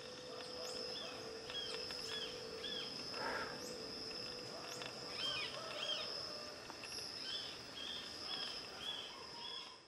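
Outdoor nature ambience: a steady high-pitched insect drone, cricket-like, with many short bird chirps repeating over it.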